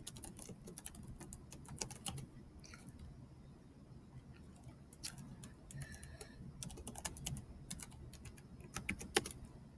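Typing on a Chromebook keyboard: faint runs of keystroke clicks, with a lull of a second or two in the middle.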